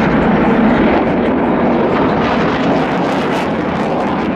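Twin jet engines of a Boeing 787 Dreamliner flying past: a loud, steady jet noise that grows slightly fainter near the end as the aircraft moves away.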